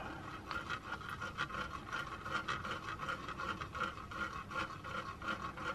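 A petri dish being swirled around on a tray, sliding and scraping faintly in a quick, even rhythm of about two to three strokes a second, mixing the tin chloride solution inside.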